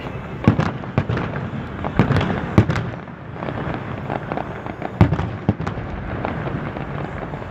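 Aerial fireworks bursting: a string of sharp bangs at uneven intervals, the loudest about five seconds in, over a continuous haze of smaller bursts and rumble.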